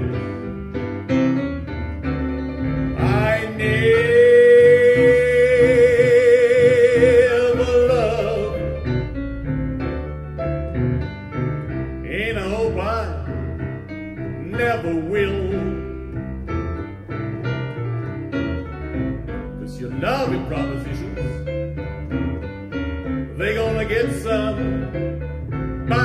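Boogie-woogie piano with double bass and a male singer, played back from CD over Martin Logan SL3 electrostatic loudspeakers driven by a Hafler XL280 MOSFET amplifier and heard through room microphones. The loudest part is a long held sung note with vibrato, from about three to eight seconds in.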